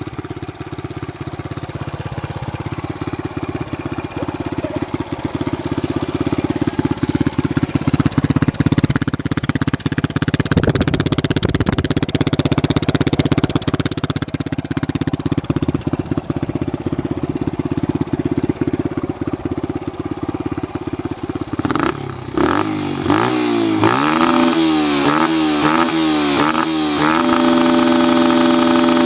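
Kawasaki KLX 125's single-cylinder four-stroke engine, fitted with a Pro Circuit T4 exhaust, running steadily at idle for about twenty seconds. Then the throttle is blipped in a quick series of rising and falling revs, and near the end it is held at high revs.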